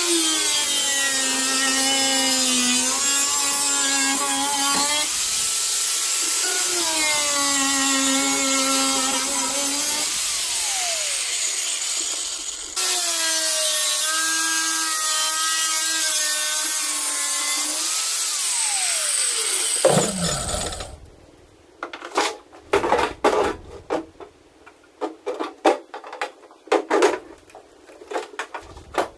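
Angle grinder cutting through aluminium, its whine sagging in pitch under load and winding down twice between cuts. It stops about 21 seconds in, followed by scattered knocks and clatter.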